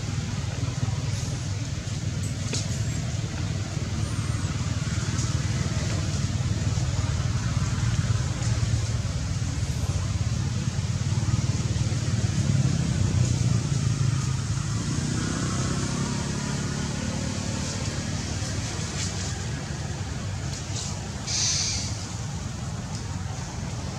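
Steady low outdoor rumble, with faint distant voices and a short high hiss about 21 seconds in.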